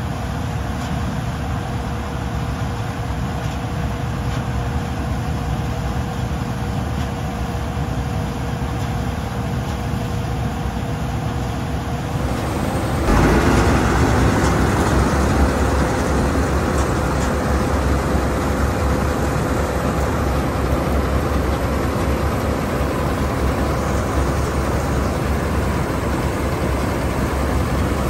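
Bizon Rekord Z058 combine harvester running under load as it harvests grain: its diesel engine and threshing machinery make a steady drone with a steady whine. It sounds farther off at first and becomes close and louder after about 13 seconds.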